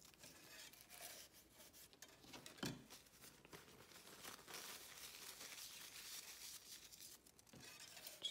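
Faint crinkling and rustling of recovery wadding tissue being folded and crumpled by hand, with one soft tap about two and a half seconds in.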